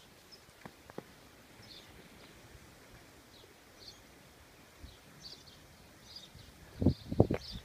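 Small birds chirping faintly, with short high chirps every second or so over quiet outdoor background. Near the end, a quick run of heavy low thumps.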